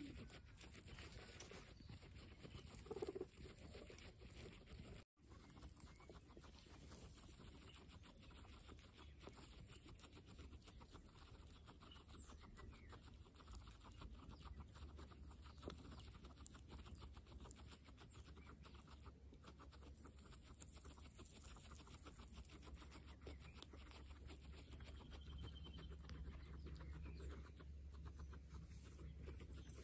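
Guinea pigs chewing fresh grass: fast, faint crunching and nibbling clicks.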